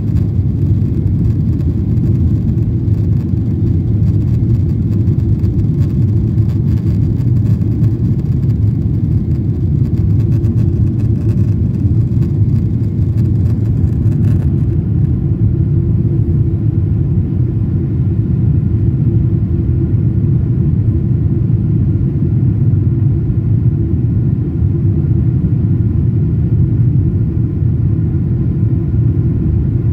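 Steady low rumble of a jet airliner's cabin noise during the climb after takeoff, its engines and airflow heard from a window seat near the wing. A faint high hiss on top drops away about halfway through.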